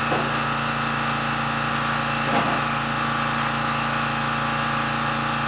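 Engine idling steadily, with a faint knock about two and a half seconds in.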